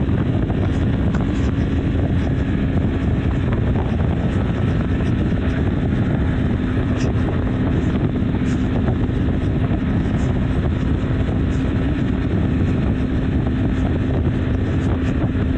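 BMW G310 R's single-cylinder engine running at a steady highway cruise, its note held at one pitch, under a constant rush of wind and tyre noise.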